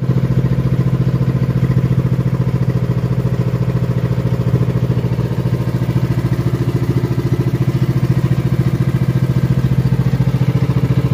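Engine of a small outrigger fishing boat running steadily under way, with a fast, even throbbing beat.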